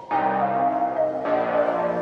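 Background music: held chords that change about once a second, with a higher melody note stepping down.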